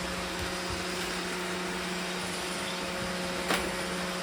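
Robot vacuum cleaners running with a steady hum of motors and brushes as they sweep up small clay chips, with one sharp click about three and a half seconds in.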